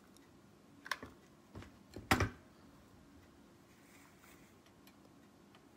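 A few light clicks and taps as hot glue is put from a glue gun onto a small wooden craft piece and it is handled, the loudest about two seconds in.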